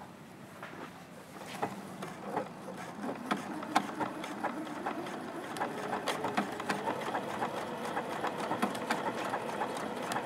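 Juki F600 sewing machine stitching an applique stitch with the open toe foot: rapid, even needle ticking over a steady motor hum. It starts softly and builds up over the first few seconds.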